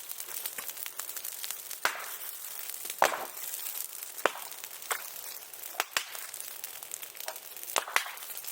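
Bonfire crackling, with irregular sharp pops and cracks over a steady hiss; the loudest crack comes about three seconds in.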